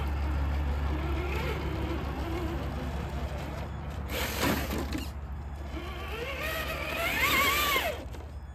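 Traxxas TRX-4 RC crawler's brushed electric motor and geartrain whining as it climbs a brick step, the pitch rising and falling with the throttle and loudest near the end. A brief scuffing noise about halfway through.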